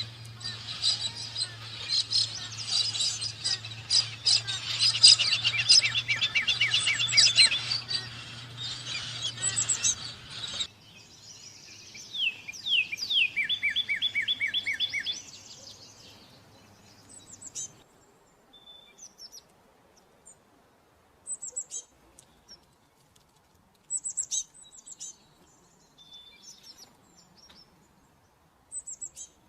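Songbirds singing: a dense chorus of rapid, high repeated notes over a steady low hum, which cuts off abruptly about ten seconds in. Then a bird gives fast trills, the hum ends near eighteen seconds, and only scattered short, high chirps remain.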